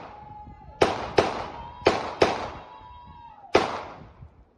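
Five sharp bangs of celebratory New Year's shooting, each with an echoing tail: two quick pairs and then a single shot near the end. A thin, high held tone runs between the shots and drops away after the last one.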